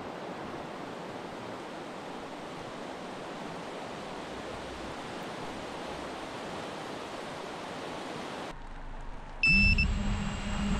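Rushing river water, a steady even rush. About 9.5 s in, after a short lull, a much louder steady motor hum with a low held tone takes over, opening with a brief high double tone.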